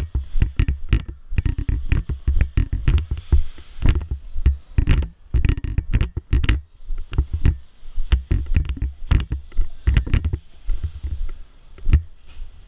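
Running footsteps and gear knocking against a body-worn camera: irregular heavy thumps and clicks, several a second, thinning out near the end.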